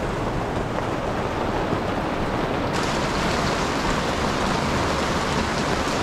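Heavy rain falling steadily, an even hiss and patter of rain on leaves and ground; the sound shifts slightly about three seconds in.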